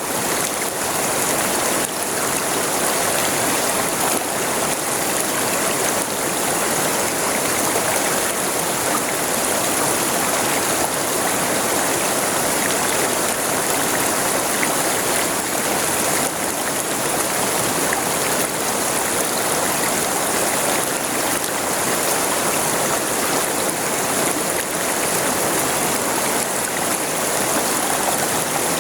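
River water flowing and rushing over rocks: a steady, even wash of running water.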